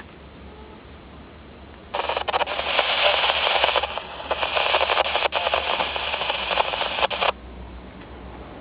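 A burst of radio static, hissing and crackling, that cuts in abruptly about two seconds in and cuts off just as abruptly about five seconds later, like a radio receiver opening and closing its squelch.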